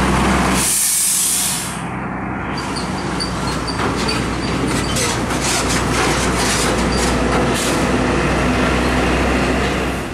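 Hino tractor-trailer loaded with steel coils driving past, its diesel engine running. About a second in, a short loud burst of air-brake hiss. After that, engine noise mixes with clattering from the trailer as it pulls away.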